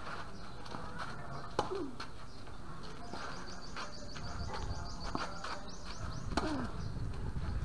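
Tennis ball struck by rackets during a rally, two sharp hits about one and a half seconds in and again about six and a half seconds in. A bird chirps in a rapid high trill in between.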